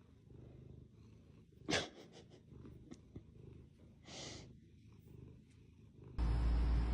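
Domestic cat purring softly, a low pulsing rumble, with a sharp click about two seconds in and a short breathy burst a little after four seconds. Near the end a loud, steady low hum starts abruptly.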